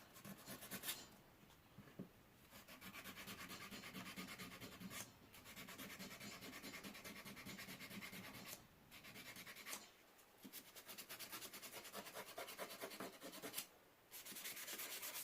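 Sandpaper rubbed by hand along a steel pocketknife blade to clean off surface rust: faint, fast back-and-forth scratching strokes in spells broken by a few short pauses.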